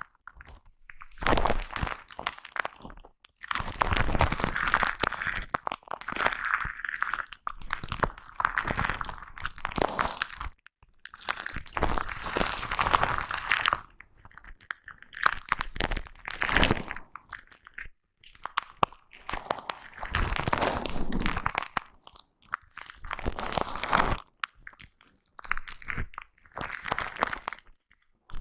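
Foam microphone cover being brushed and rubbed right against the microphone, making crunchy, scratchy rustling in irregular strokes of a second or two, with short silent pauses between them.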